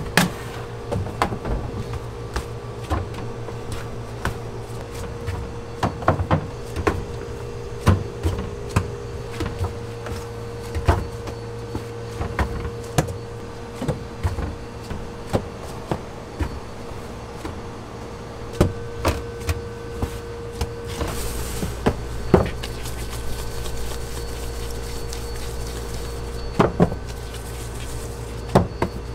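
Dough being portioned by hand with a plastic bench scraper on a steel worktable and the pieces set into a plastic proofing tray: irregular knocks and taps over a steady hum of kitchen equipment.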